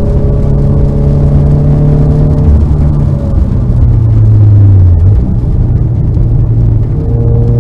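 Car engine heard on board while lapping a race track, running at a steady pitch under load, dropping to a lower note from about three and a half seconds in and climbing back to the higher steady note near the end.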